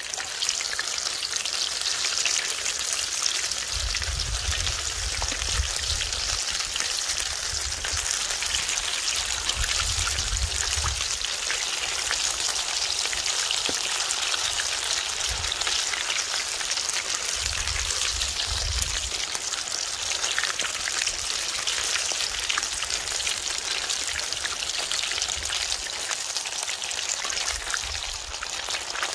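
Battered shrimp deep-frying in hot oil in a cast-iron cauldron, a steady dense sizzle and crackle of bubbling oil. A few brief low rumbles come and go under it.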